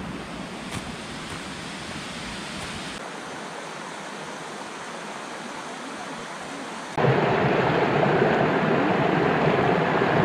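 Mountain stream running over rocks, a steady rush of water that becomes louder and fuller about seven seconds in.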